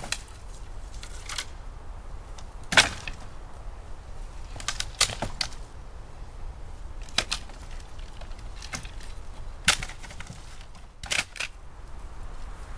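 A series of sharp cracks and pops at irregular intervals, about a dozen in all, the loudest about three seconds in, over a faint low rumble.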